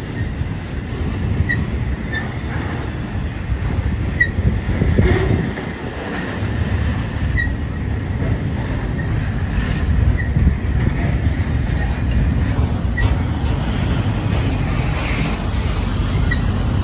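CPKC intermodal freight cars rolling past with a steady low rumble, and short high wheel squeaks every second or two.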